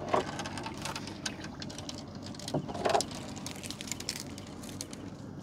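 Gill net being hauled up by hand: irregular clicks, knocks and splashes as wet netting, floats and water come over the side.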